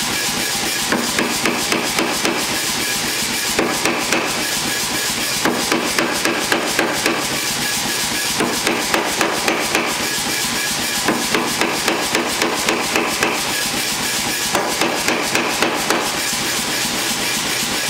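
Blacksmith's hand hammer striking a red-hot steel bar held in a bottom swage die on the anvil. The blows come in runs of several quick strikes, about four a second, with short pauses between runs, over a steady rushing noise.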